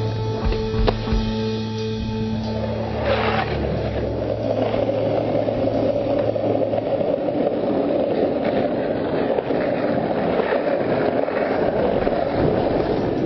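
Skateboard wheels rolling on rough street pavement, a steady gritty rumble that takes over about three seconds in, with background music underneath that drops back after the first few seconds.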